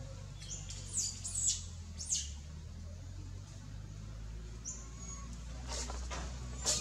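Short, high-pitched animal chirps, each falling in pitch. A quick run of them comes about a second in and more near the end, over a steady low hum.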